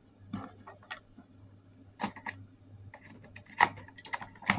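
AA batteries being pushed into a plastic toy's battery compartment: a scatter of small clicks and knocks of the cells against the hard plastic, the loudest ones near the end.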